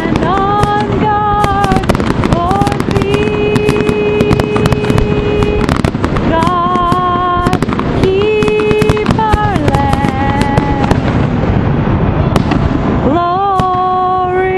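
Fireworks display: a continuous barrage of bangs and crackling from aerial shells bursting overhead, with a melody of long held notes sounding over it.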